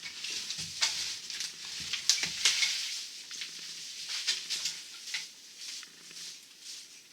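Demolition debris being cleaned up: repeated scraping and rustling strokes with scattered sharp knocks.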